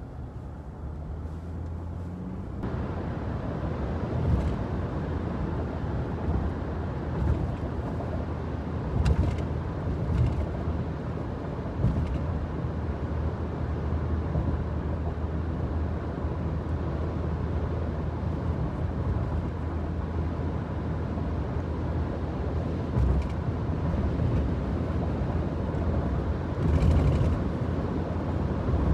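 Car cabin noise while driving: a steady low engine and road drone that gets louder about two and a half seconds in, as the car picks up speed, with a few short bumps along the way.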